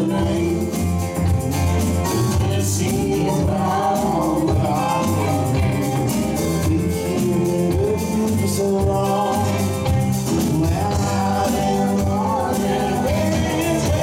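Live band playing a country-rock song: electric guitar and electric bass over a full band, a passage without sung words.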